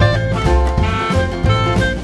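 Background music in a jazz or swing style, with a steady beat and bass under sustained melody notes.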